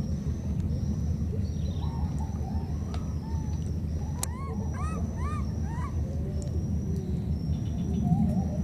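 Baby macaque giving short, arching calls that rise and fall in pitch, several in quick succession about four to five seconds in: the contact calls of an infant separated from its companion. Behind them insects buzz in a high, steady tone that breaks off every second or so, over a constant low rumble.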